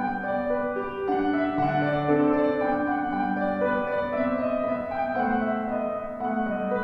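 Solo piano playing slow, held chords under a melody, with the notes changing about once a second.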